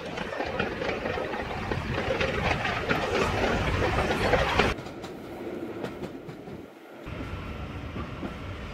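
Steam locomotive hauling a train passes close by, its running noise and wheel clatter growing louder until it cuts off suddenly after nearly five seconds. Then comes the steadier, quieter sound of the train rolling, heard from aboard.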